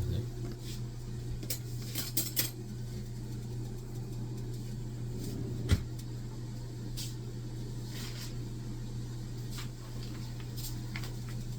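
Small clicks, taps and light knocks of kitchen items being handled while cornmeal is fetched, with one sharper knock about halfway through. A steady low hum runs underneath.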